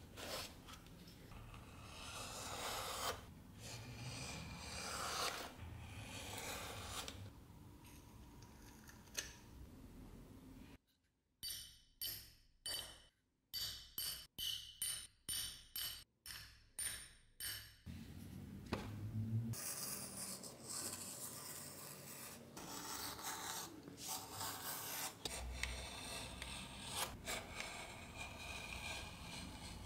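Leather being rubbed and pressed by hand with scraping noises. In the middle comes a run of about a dozen sharp strikes, a bit over one a second, as a pricking iron is driven through leather on a metal anvil. After that, a utility knife scrapes and slices through leather along a steel ruler.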